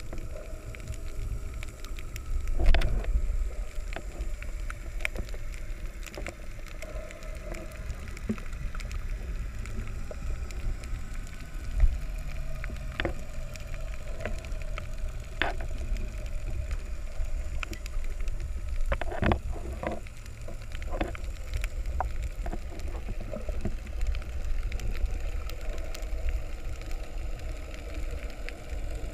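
Underwater sound through a submerged action camera while snorkeling: a steady low water rumble with scattered sharp clicks, two louder thumps about three seconds in and near twelve seconds, and a faint steady hum.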